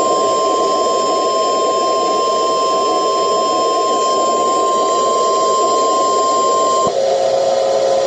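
Emergency Alert System attention signal: one loud, steady tone over a noisy radio background. It cuts off suddenly about seven seconds in, and a fainter, lower tone follows.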